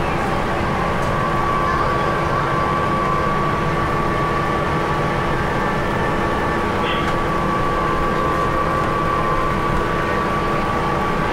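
Steady drone of a moving bus heard from inside the cabin: engine and road noise with a steady high whine running through it.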